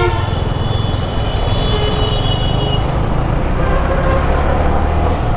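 Motorcycle engine and road noise while riding through busy city traffic. A vehicle horn cuts off just at the start, and another horn sounds for about a second around two seconds in.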